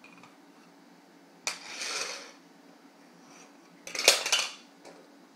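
Plastic Mega Bloks toy car pieces clattering against a hardwood floor: a short rattle about a second and a half in, then a louder clack and rattle about four seconds in.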